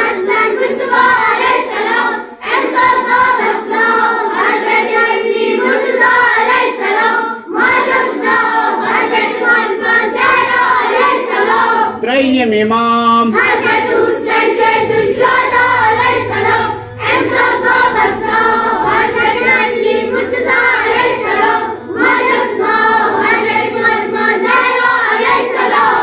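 Children's voices chanting in unison, a choir of young voices singing the names of the twelve imams in repeated phrases of about five seconds, separated by short breaks.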